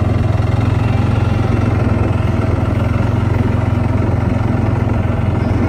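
A vehicle engine idling steadily, a low, even throb with a rapid regular pulse.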